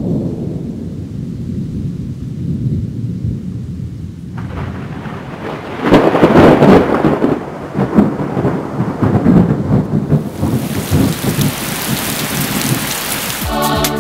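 Thunderstorm: low rolling thunder, then rain sets in about four seconds in, with loud thunderclaps in the middle and the rain growing heavier and hissing toward the end.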